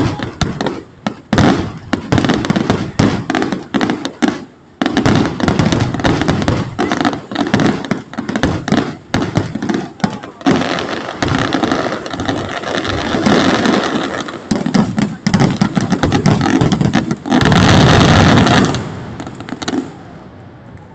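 Fireworks finale: dense, rapid volleys of aerial shell bursts and crackling, thickening into an unbroken barrage, with the loudest solid burst near the end before it falls away.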